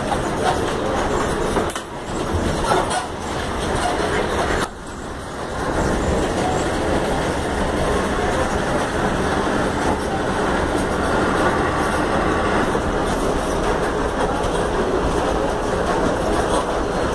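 Volkswagen 17-230 OD city bus under way, heard from inside the cabin: a steady, dense rumble of engine and road noise with rattling. Almost five seconds in, the sound drops off suddenly for about a second, then builds back up.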